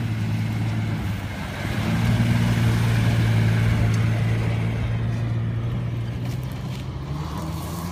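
Compact SUV's engine pulling under load as it climbs a sandy slope, holding a steady note that grows louder about two seconds in and eases off as the vehicle moves away up the hill.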